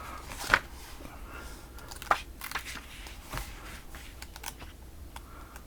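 Comic books being handled and shuffled: crinkling and rustling of paper and covers with scattered light taps and clicks.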